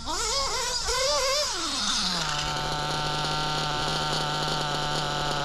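HOBBYTECH B213 nitro engine in an RC buggy, revved in a few quick throttle blips that rise and fall in pitch. About two seconds in the revs drop away and it settles into a steady idle.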